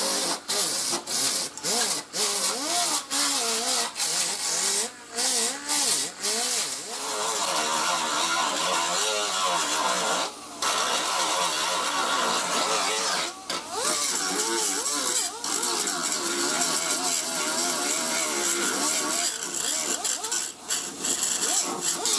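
Power grinders working on the bare steel of a car's quarter panel, taking it down ahead of body filler. At first a disc grinder runs in short bursts, its pitch wavering under load. From about seven seconds on, a small abrasive wheel grinds almost without a break, throwing sparks off the metal near the end.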